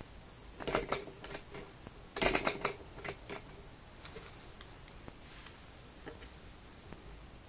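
Small metal model vacuum (flame-licker) engine clicking and clattering as its flywheel is turned by hand to start it. There are two short bursts of rapid clicks, about half a second in and again about two seconds in, then a few scattered faint ticks.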